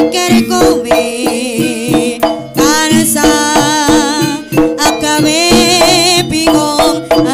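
Live jaranan music from an East Javanese gamelan ensemble: steady drum strokes over sustained ringing gong tones, with a high wavering melody line rising and falling over it.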